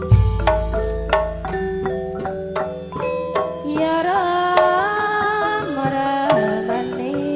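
East Javanese gamelan music accompanying a Remo dance: struck metallophone notes and drum in a steady rhythm, with a deep gong stroke at the start that rings out over a few seconds. A singer's voice comes in about four seconds in.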